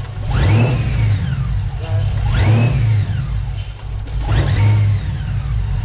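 Supercharged engine with a newly installed 2.9-litre Whipple supercharger, blipped three times from idle, the pitch rising and falling with each blip. The engine is still cold.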